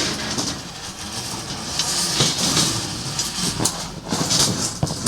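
Steel rebar rattling and clinking as reinforcement cages are handled and wire-tied, with scattered sharp clicks over a continuous clatter.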